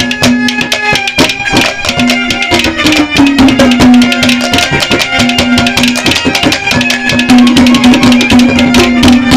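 Ragini accompaniment playing between sung verses: a hand drum beats a fast, steady rhythm under a melody instrument holding long notes.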